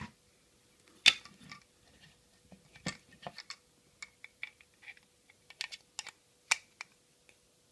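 Small plastic parts of a children's toy construction kit clicking and tapping as they are handled and fitted together, in scattered irregular knocks with the sharpest about a second in.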